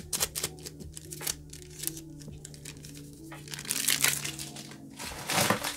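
Foil trading-card booster pack crinkling and rustling as it is opened and the cards are slid out and handled, in a series of crackles with the loudest rustle near the end. Soft background music plays underneath.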